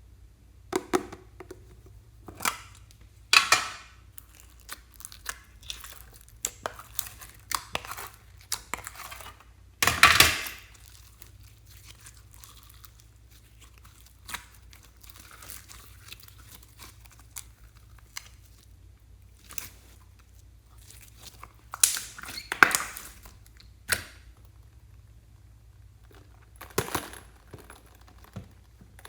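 Hands working slime and small items: scattered crinkling, tearing and clicking handling noises, with louder bursts about 3, 10 and 22 seconds in.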